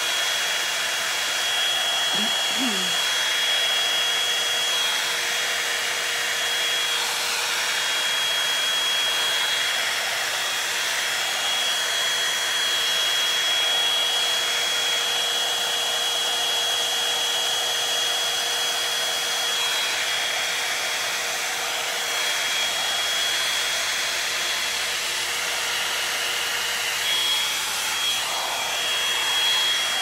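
Revlon One-Step Volumizer hot-air brush running steadily: an even rush of blown air with a thin, high-pitched whine.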